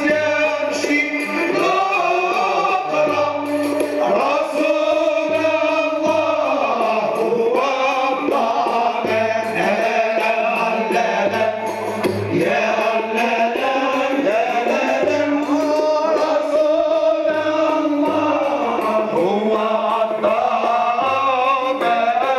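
A Moroccan Sufi men's chorus singing a devotional chant, the melody moving and sliding over low held notes that come and go every second or two.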